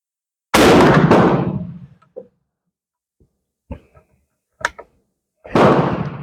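Two loud rifle shots about five seconds apart, each a sharp crack that dies away with a long echoing tail. A few small clicks come between them.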